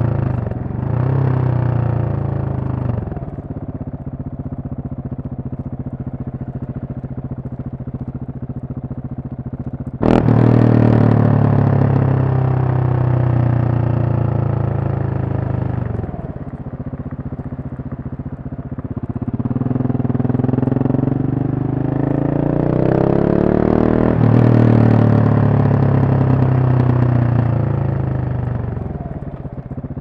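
KTM 690 Supermoto's single-cylinder engine, heard from the rider's seat. It runs quietly for several seconds, then surges loudly about a third of the way in. Its note rises and falls as the bike accelerates and shifts through the gears, then eases off near the end.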